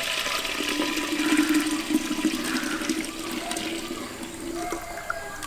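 Warm milk poured in a steady stream into an earthenware clay pot, splashing and gurgling as the pot fills. The pouring eases off near the end.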